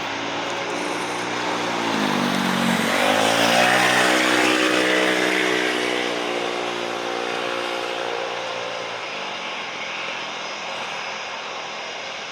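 Boeing 737-800 jet engines at takeoff power as the airliner passes: a steady roar whose tones dip and then rise again as it goes by, loudest about four seconds in, then fading as it moves away.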